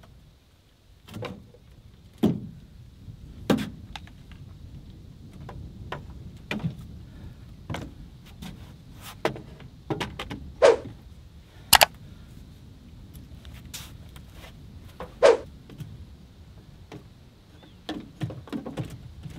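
Chainsaws being set one after another into grooves cut in a wooden 4x4 rack in a pickup bed: irregular knocks and clunks of the saws' housings and bars against the wood and the bed liner, the sharpest just past halfway.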